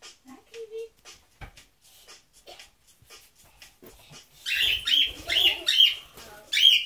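Small pet parrot on a hanging rope perch toy: scattered soft clicks at first, then, in the second half, a run of about five loud, shrill calls.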